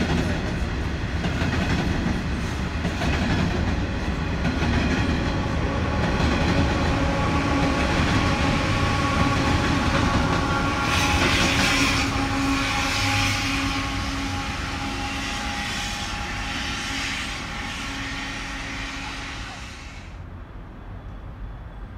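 Coal train of hopper wagons rolling past: a steady rumble and clatter of steel wheels on the rails with some steady ringing tones, and a brighter hiss building in the middle. The sound cuts off sharply near the end, leaving a quieter rumble.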